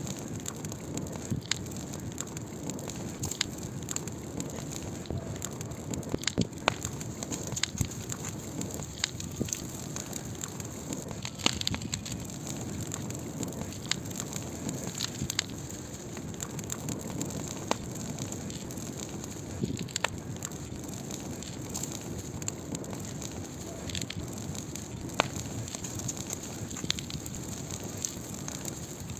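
Wood fire burning: a steady hiss under irregular sharp crackles and pops, with a louder snap every second or two.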